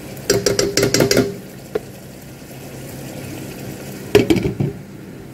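A ladle clattering and scraping against a cooking pot while stirring a simmering sauce, with the liquid bubbling quietly in between. A glass lid clanks down onto the pot just after four seconds.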